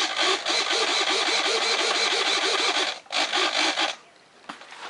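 Small RC hobby servos driving the foam jet's control surfaces back and forth, making a rapid buzzing whir. It breaks briefly about three seconds in, resumes, then stops about a second later.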